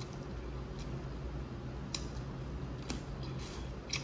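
Eating sounds at a seafood boil: four or five short, sharp clicks and cracks, as crab shell is broken and picked, over a low steady hum.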